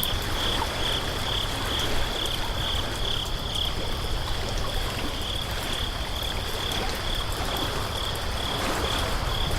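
A high chirp repeating a little more than twice a second, pausing briefly about four seconds in, over a steady hiss and a low hum.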